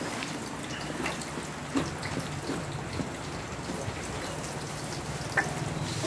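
A metal spatula stirring and scraping thick red chili spice paste as it fries in a large wok. There is a steady soft sizzle with irregular small pops and wet clicks from the paste.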